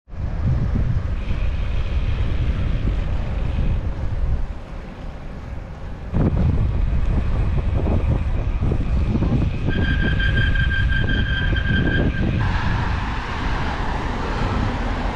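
Wind buffeting the microphone of a camera on a moving bicycle, a steady heavy rumble that eases briefly a few seconds in. About ten seconds in, a high steady whine sounds for about two seconds.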